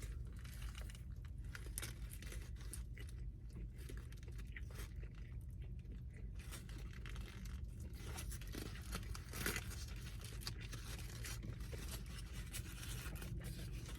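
Close-up chewing and biting of a burger: soft crunches and small wet clicks scattered through, over a steady low hum.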